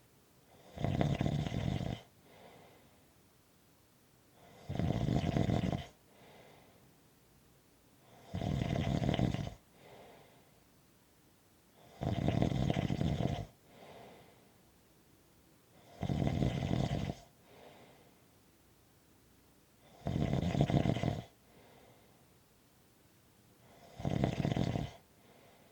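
Slow, even snoring: seven loud snores about four seconds apart, each lasting a little over a second, with a soft breath between them.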